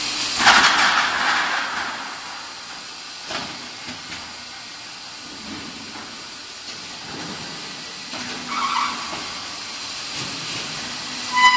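Pallet dispenser of an AAC block production line working its stack of steel pallets. A loud hiss starts about half a second in and fades over a second or so, followed by a few light knocks. A short ringing metal squeal comes near the end, all over steady factory machine noise.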